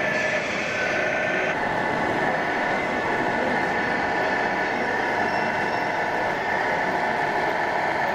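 Scale model RC truck's simulated diesel engine sound running steadily, with exhibition-hall murmur behind it; the sound shifts about a second and a half in as one truck's engine sound gives way to another's.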